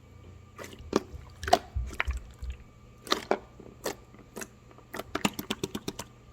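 Chewing: irregular crisp crunches and clicks, with a few low thuds in the middle and a quick run of clicks near the end.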